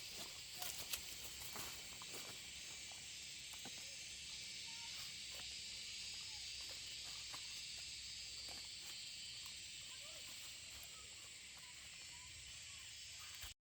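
Steady high-pitched insect drone in forest ambience, with a few faint short chirps and light clicks.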